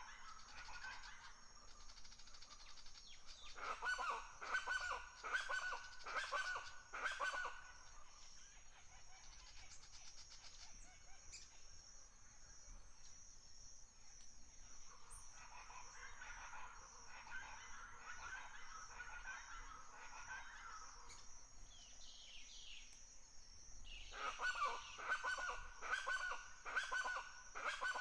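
Birds calling in three spells of rapid repeated calls: about four seconds in, around the middle, and again in the last few seconds. A steady high-pitched buzz runs underneath.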